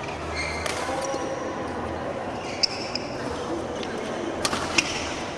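Badminton rackets striking the shuttlecock during a rally: a handful of sharp hits, the loudest about halfway through and near the end, over the steady background noise of a sports hall.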